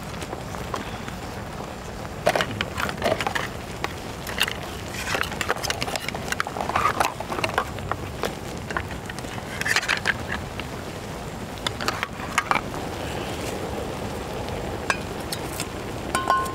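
Wooden spatulas stirring and turning shellfish on a stainless steel cooking tray, with irregular clinks and scrapes of shells against each other and the metal, over a steady hiss of the seafood steaming.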